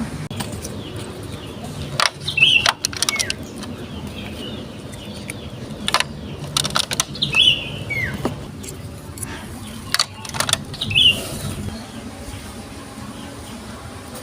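Marbles rolling along a plastic Lego Duplo block track with a steady rumble, clacking against the bricks in short bursts about every four seconds, each burst ending in a brief high ring.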